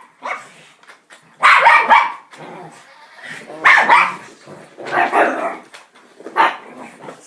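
Dog barking in about five short barks, one to two seconds apart.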